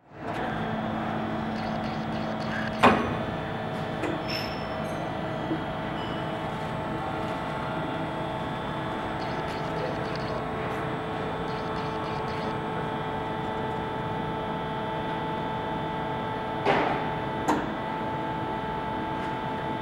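Steady hum of industrial machinery with several held tones, broken by one sharp clank about three seconds in and two smaller knocks near the end.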